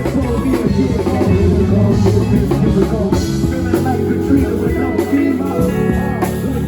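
Recorded music with guitar and a drum kit.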